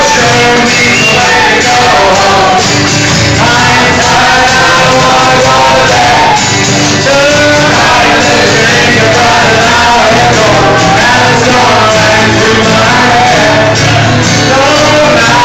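Live band: a man singing into a microphone over two guitars, loud throughout.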